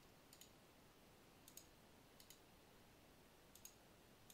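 Computer mouse clicking faintly a few times, some clicks in quick pairs, over near-silent room tone.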